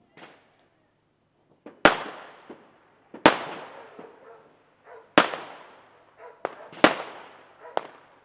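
Fireworks going off: four loud bangs about one and a half to two seconds apart, each trailing off over the next second, with smaller pops in between.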